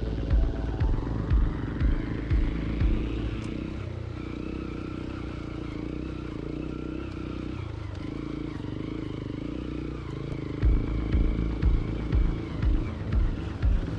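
Hero Impulse motorcycle's single-cylinder engine running: its pitch rises over the first few seconds, then holds fairly steady. Regular low thumps, about two a second, are heard at the start and again from about ten seconds in.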